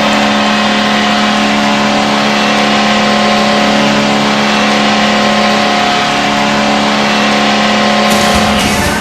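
Nashville Predators' arena goal horn blowing one long, loud, steady blast of several tones at once, beginning to give way near the end as the goal song starts.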